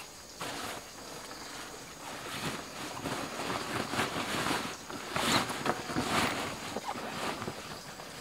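Rustling and scraping of a nylon backpack and cloth as clothing is stuffed into the pack, mixed with the crackle of leaves underfoot as he shifts. The rustles come in irregular strokes and are loudest about five to six seconds in.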